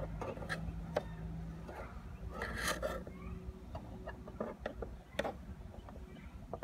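Screwdriver prying at the cracked side-mirror glass of a 2013 Toyota Prius: scattered sharp clicks and scrapes of the metal blade against plastic and glass, with a longer crackling scrape about two and a half seconds in.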